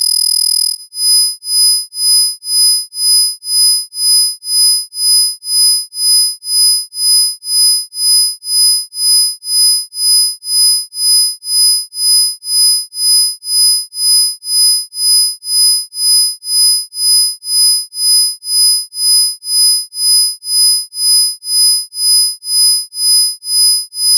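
Isochronic sine tones: steady pure tones near 5,000 Hz and 10,000 Hz over fainter lower tones, all pulsing on and off about twice a second. About a second in, the sound changes from a continuous tone to this pulsing.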